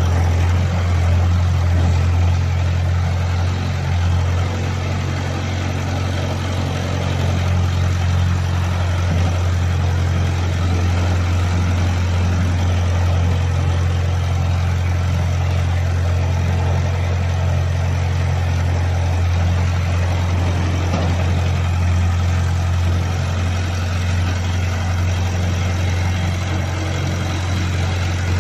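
XY-3 hydraulic core drilling rig running steadily with a strong low drone, its note shifting slightly a few seconds in and again past the twenty-second mark as the control levers are worked.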